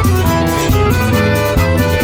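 Instrumental forró music with accordion over a steady bass rhythm, played from a vinyl record.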